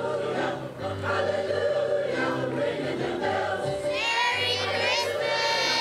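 A choir singing a Christmas song, several voices holding sustained notes over a low steady part; about four seconds in, high voices with a wavering vibrato come to the fore.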